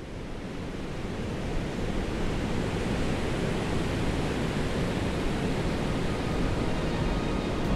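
Ocean surf: a steady rush of breaking waves, swelling up over the first second or two and then holding steady.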